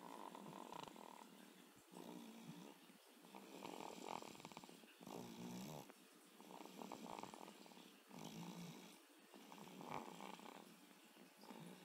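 Baby snoring faintly, a rasping breath repeating every second or two.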